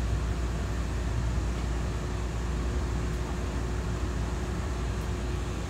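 Steady interior noise in a car of a Taiwan Railway EMU3000 electric multiple unit: a low, even rumble with a faint steady hum over it.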